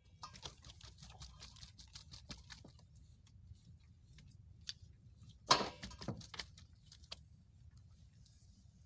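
Scattered light clicks and taps of things being handled aboard a small fishing boat, thickest in the first few seconds, with one sharp louder knock about five and a half seconds in, over a low steady rumble.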